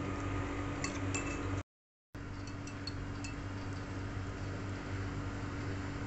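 Fork and spoon clinking lightly against a noodle bowl a few times while eating, over a steady low hum. The sound drops out completely for about half a second a couple of seconds in.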